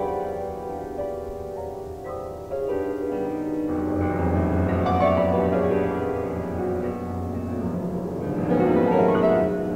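Solo grand piano playing dense clusters of sustained notes that ring together. Deep bass notes come in about two and a half seconds in, the music grows louder, and it swells again near the end.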